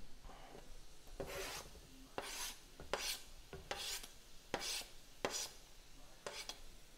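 A knife blade scraping diced onion off a cutting board into a skillet, in about seven short rasping strokes.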